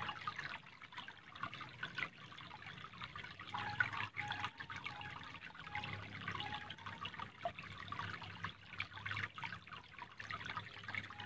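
Shallow stream water trickling and babbling over stones, a steady fine splashing.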